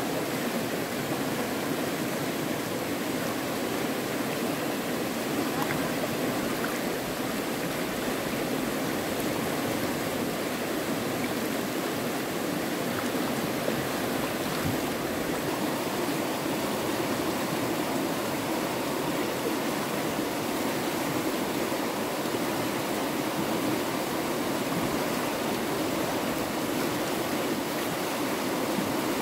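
Stream water flowing in a steady, even rush.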